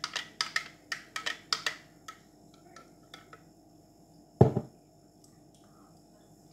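Metal spoon clinking against a drinking glass while stirring a drink, a quick run of light clinks at about five a second that stops about two seconds in. About four seconds in comes a single heavy knock as the glass is set down on the benchtop.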